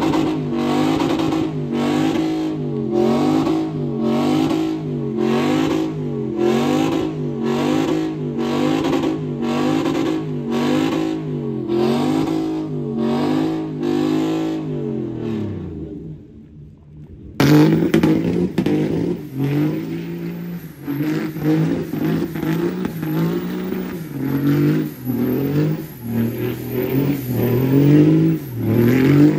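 Pickup truck engines revving hard during tyre-smoking burnouts. First a Ford F-150's engine revs up and down in a steady rhythm about once a second, then drops away and fades; after an abrupt cut, a Dodge Ram pickup's engine revs in uneven swells.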